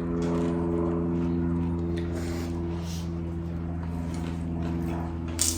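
Soft chewing and food-handling sounds of people eating spring rolls, over a steady low hum, with a sharp click near the end.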